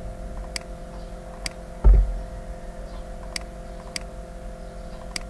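Computer mouse clicking several times, sharp separate clicks while lines are drawn in CAD software, over a steady hum. A short low thump comes about two seconds in.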